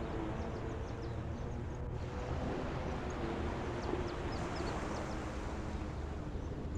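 Shoreline ambience of wind and water, a steady low rumble, with a motorboat's engine hum fading out and a few faint high bird chirps in the middle.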